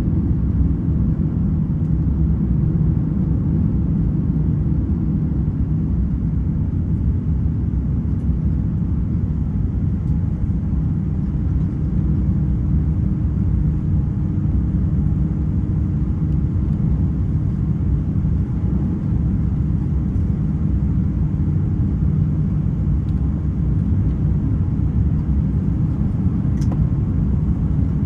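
Steady low cabin rumble of an Airbus A350-900 airliner in flight, even and unchanging, with a faint tick or two.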